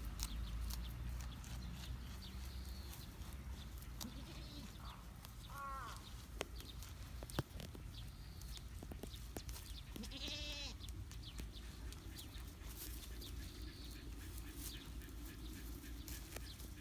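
Baby goat bleating twice: a short call about five seconds in and a longer, wavering bleat about ten seconds in, with a few sharp clicks between them.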